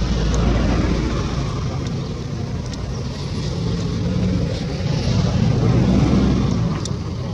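Steady low engine rumble, like a motor vehicle running nearby, growing louder about five to six seconds in.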